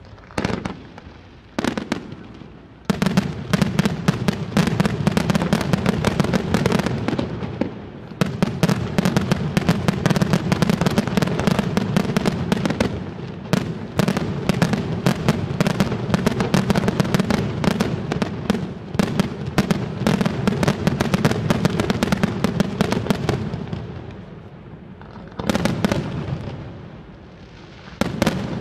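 Aerial fireworks display: a few separate shell bursts, then about twenty seconds of rapid, overlapping bangs from a dense barrage, thinning out near the end with a couple more single bursts.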